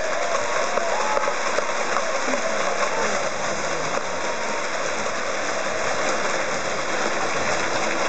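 Arena crowd noise at a boxing match between rounds: a steady hubbub of many spectators' voices.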